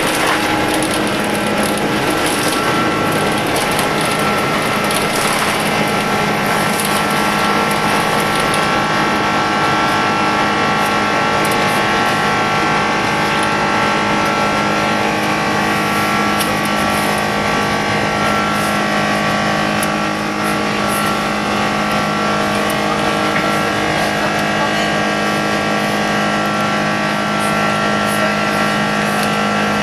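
Airbus A330-300 jet engines at take-off thrust heard from inside the passenger cabin: a loud, steady, noisy rush with several steady whining tones over it.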